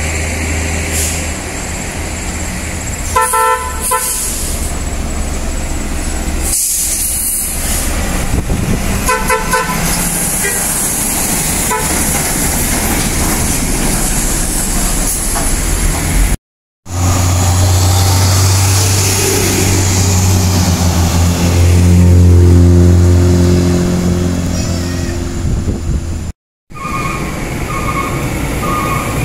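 Heavy diesel trucks running up a hill as they pass, a deep steady engine drone that is loudest in the second half. Short pulsed blasts of a multi-note truck horn sound twice in the first ten seconds and again near the end.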